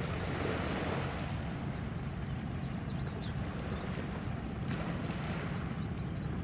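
Waterfront ambience: a steady low rumble across the water, with a few faint high chirps now and then and a faint click about three-quarters of the way through.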